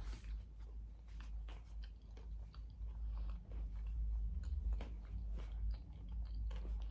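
A person chewing a mouthful of crunchy chicken tostada close to the microphone, with many short crunches and wet mouth clicks.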